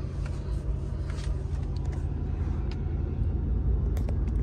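Mercedes-AMG C63's twin-turbo V8 idling steadily, a low rumble heard from inside the cabin, with a few faint clicks.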